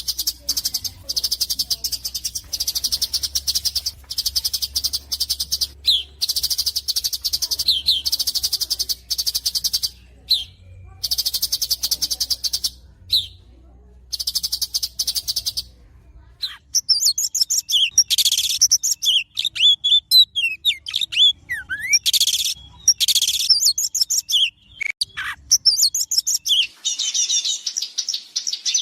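Recorded songbird song: high, rapid trills in repeated bursts about a second long for the first half, then a varied song of quick chirps and falling whistles.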